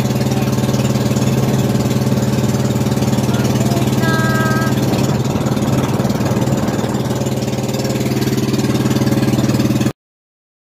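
Motorboat engine running steadily at cruising speed, with water rushing along the hull; it cuts off abruptly near the end.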